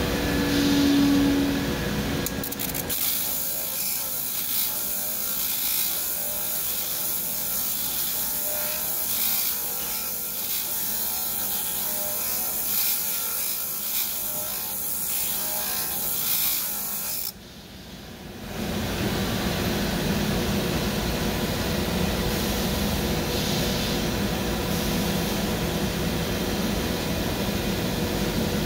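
Bench grinder running with a steel blade pressed against its abrasive wheel: a steady hissing grind over the motor's hum. It drops away briefly a little past the middle, then carries on with more low hum.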